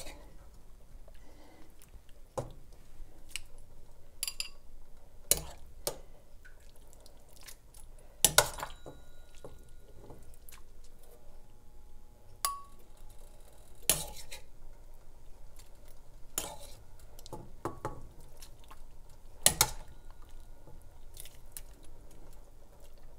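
A ladle clinking and scraping against a stainless steel pot and a ceramic bowl as soup is dished up. The clinks come at irregular moments, and a few louder ones ring briefly.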